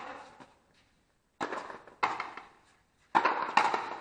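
Frontenis rally: sharp smacks of the rubber ball off rackets and the frontón wall, each ringing off the court. Two quick pairs of hits, about half a second apart, one pair around a second and a half in and another near three seconds in.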